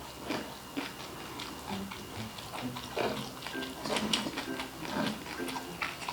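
Close-up chewing and crunching of crispy food, many short sharp crunches at an irregular pace, over light background music.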